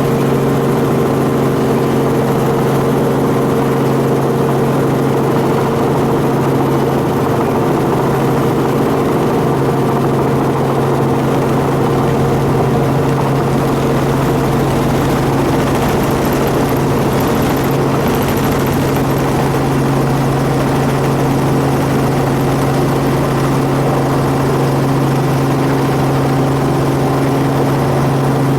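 Helicopter engine and rotor running steadily: a constant loud drone with several steady hum tones.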